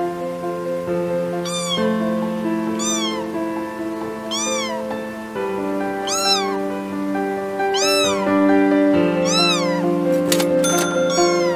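Kitten meowing over and over: about seven high, rising-and-falling meows, roughly a second and a half apart. Background music with long held notes plays underneath.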